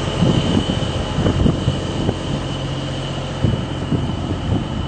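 An engine running with a steady low hum and a thin, steady high whine above it.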